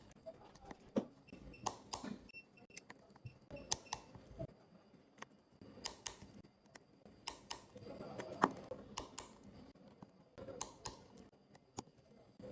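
Scattered sharp, faint clicks and taps of a screwdriver working the small internal screws of an iPhone XR, as they are tightened to a set torque.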